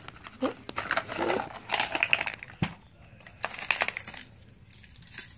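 Clear plastic tackle cases clicking and clattering against each other, with rustling of the soft tackle bag, as they are packed into the bag's pocket; a few sharp clicks and two short clattering bursts.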